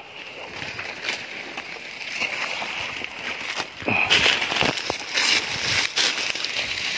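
Frogs croaking, with several sharp knocks and rustles, the loudest about four seconds in.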